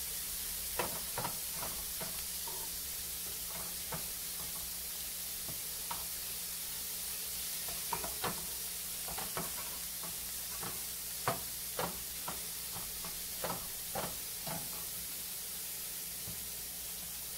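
Comb tooth mushroom pieces sizzling steadily in butter in a nonstick frying pan, with a spatula scraping and knocking against the pan about ten times while stirring, the loudest knock a little past the middle.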